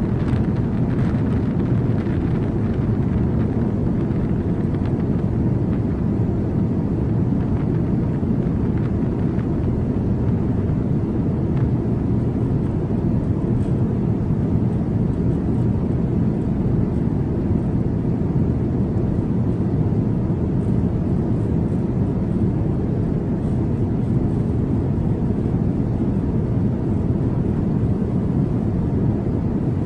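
Steady, deep rumble of jet aircraft noise on an airport apron, unbroken throughout.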